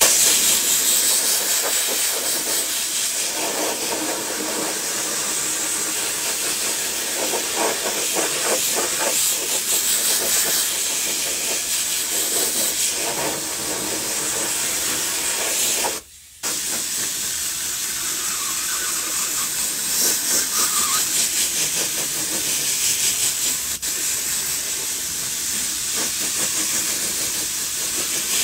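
Compressed-air gravity-feed spray gun spraying DAP Weldwood contact adhesive: a steady, loud hiss that stops for a moment about halfway through and then starts again.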